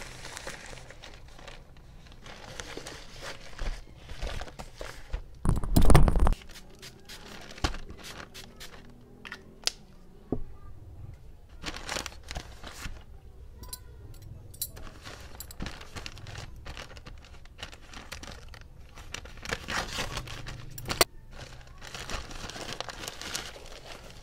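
Plastic courier mailer bags crinkling and rustling as they are handled and opened. There is a loud burst of handling noise about six seconds in.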